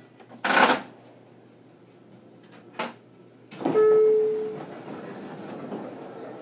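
JR Kyushu 817 series electric train at a station stop: two short bursts of air hiss, then a louder clunk with a brief ringing tone, as the air-operated sliding doors work. A steady low rumble follows.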